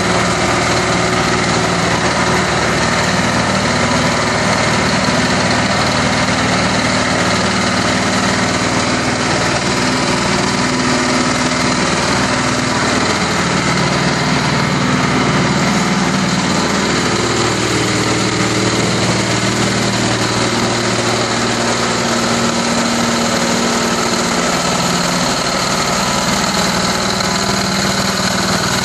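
Small engine of a portable concrete mixer running steadily, turning the empty drum; its note shifts briefly about halfway through.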